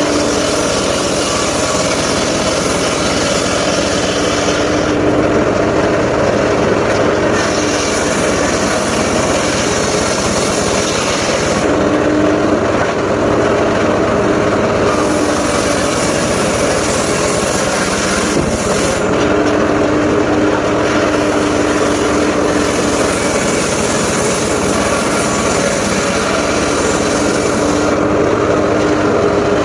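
Circular saw rig running continuously while sawing mahogany and waru timber, with a steady hum underneath. The rushing cutting noise eases off and comes back several times as the blade works through the wood.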